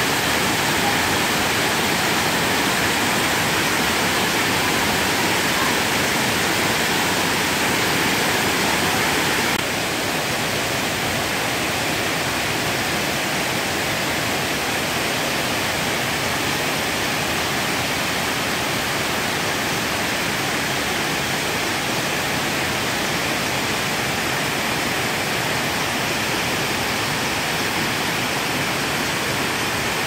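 Waterfall pouring over rock cascades: a steady, even rush of water, a little quieter from about ten seconds in.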